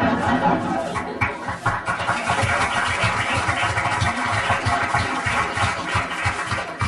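Sound effect of the microwave breaking down from the metal inside it: a loud, steady rumbling, crackling noise with rapid low pulses throughout.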